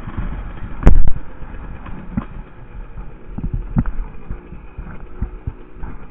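Husqvarna WR 150 two-stroke dirt bike running at low speed, its engine faint under rumble and irregular knocks and thumps as the bike and camera jolt over bumpy ground. One loud thump comes about a second in.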